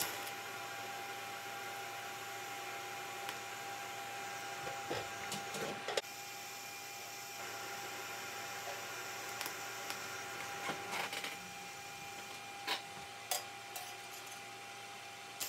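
TIG welding on thin sheet steel: a steady arc hiss with a constant hum, broken by a few sharp clicks.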